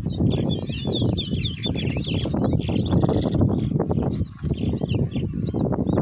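Caged towa-towa seed finches singing in competition: quick, rapid chirping warbles in repeated phrases. Loud low wind rumble on the microphone runs underneath.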